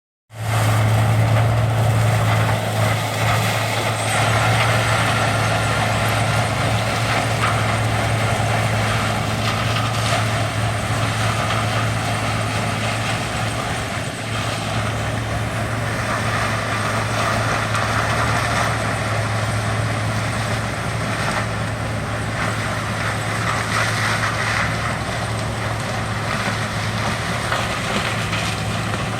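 A large engine running steadily, with a constant low hum and no change in speed.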